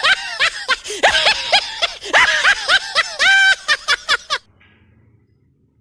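A person laughing in quick, pitched ha-ha pulses, several a second, ending in one longer drawn-out note about three and a half seconds in, then dying away.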